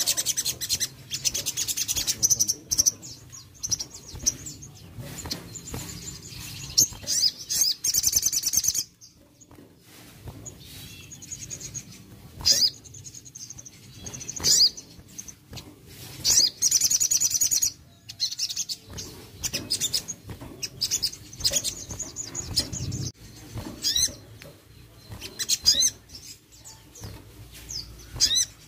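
Sogon (brown-throated sunbird) singing: high, quick chirps and rapid buzzy trills in repeated bursts, with a short lull about a third of the way in.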